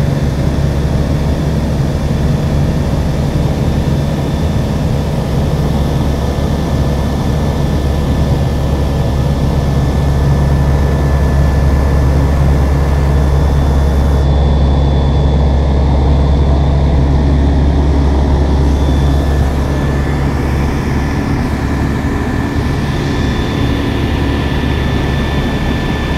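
Ultralight aircraft's engine and propeller running steadily in flight, heard from inside the cockpit as a loud, even drone.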